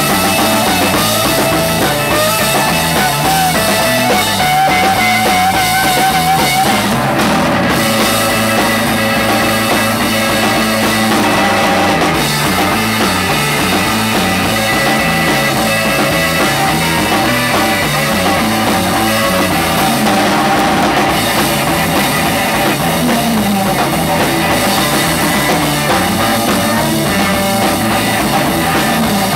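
Live instrumental rock band: an electric guitar plays the lead melody over a driving drum kit, the guitar's held notes wavering in pitch a few seconds in.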